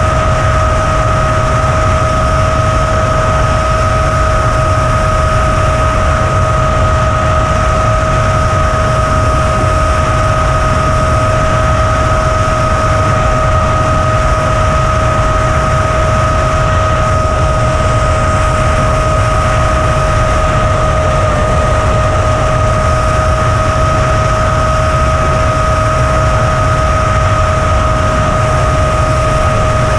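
Onboard audio of an FPV drone in fast flight: a steady rush of wind and hiss, with a constant high whine held at one pitch throughout.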